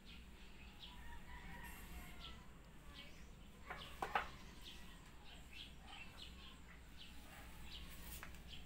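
Faint bird chirps, scattered short calls throughout, with a brief, louder double sound about four seconds in.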